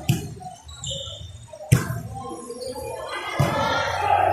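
Two sharp hits of a volleyball, about a second and a half apart, followed near the end by a rising clamour of players and onlookers shouting.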